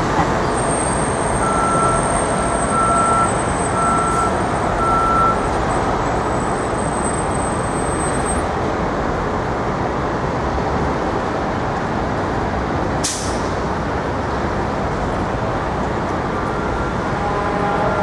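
Steady city street traffic noise from passing cars and trucks. Four short evenly spaced beeps come early on, and a brief sharp hiss comes about two-thirds of the way through.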